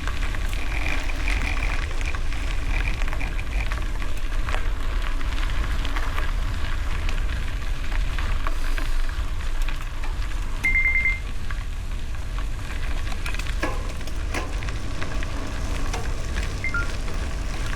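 Gravel bike tyres crunching and crackling over a loose gravel road, with wind rumbling on the microphone. One short high-pitched squeak comes about two-thirds of the way through.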